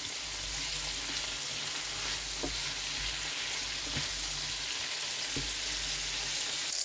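Sliced onions and bell peppers sizzling in oil in a non-stick frying pan, a steady hiss as a silicone spatula stirs them. A few light knocks of the spatula against the pan come through.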